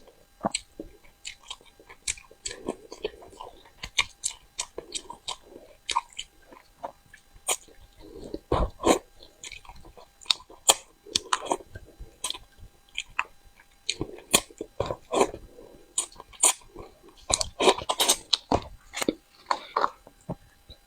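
Close-up chewing and biting of crucian carp: wet mouth smacks and sharp crunches at an uneven pace, some close together and some with pauses of a second or two.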